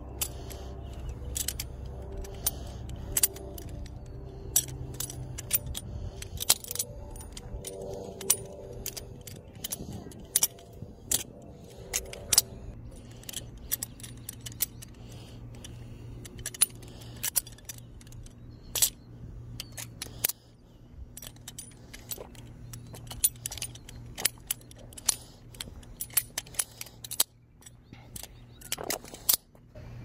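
BBBarfly butterfly knives (balisongs) being flipped: the metal handles and blade clack against each other in scattered sharp clicks, at times several a second.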